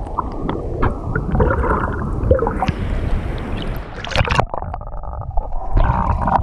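Water sloshing, splashing and gurgling around a waterproof action camera at the surface, with a sharper splash about four seconds in as it dips under and the sound turns duller.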